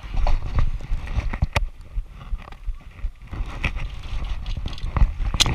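Irregular footsteps and rattling kit as an airsoft player moves on foot with a body-worn camera, with two sharp cracks, one about a second and a half in and one near the end.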